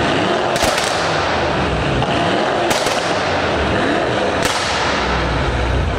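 Mercedes-AMG E63 S twin-turbo V8s, one a Brabus 800, being revved, the engine note rising and falling. Sharp exhaust cracks come about three times: just under a second in, near the middle and past four seconds.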